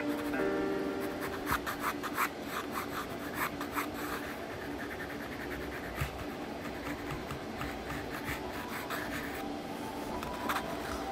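Graphite pencil scratching on drawing paper in quick, repeated sketching strokes, densest in the first few seconds, then softer and steadier.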